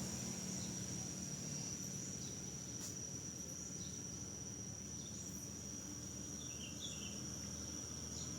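Steady high-pitched insect trill, like crickets, over a faint low hum, with a few faint chirps about two-thirds of the way through.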